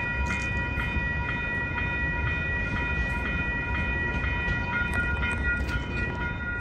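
A train passing, with a bell ringing steadily about twice a second over a low rumble.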